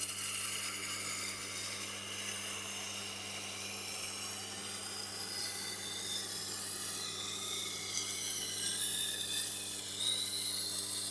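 Knife blade held against a turning Tormek wet grindstone, a steady grinding hiss with wavering high tones over the low hum of the machine's motor. The edge is being ground at about 13–14 degrees a side and has not yet raised a burr.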